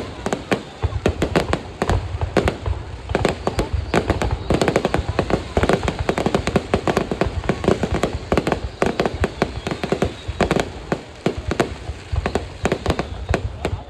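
Fireworks display going off: a rapid, unbroken series of sharp bangs and pops, many overlapping, continuing throughout.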